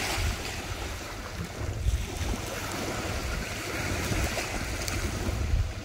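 Surf washing on the beach, with wind gusting on the microphone as a low, uneven rumble.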